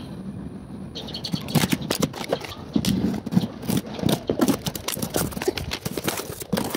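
Brake parts and their cardboard packaging being handled: a run of irregular knocks, clicks and rustles starting about a second in.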